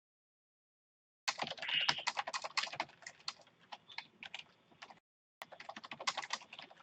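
Typing on a computer keyboard: quick runs of keystrokes starting about a second in, with a short pause around five seconds.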